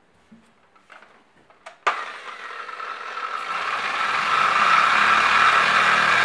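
A handheld electric sander is switched on with a sharp click about two seconds in, then runs steadily, growing louder over the next few seconds as its pad sands a 3D-printed PETG plastic part. A few light handling knocks come before it starts.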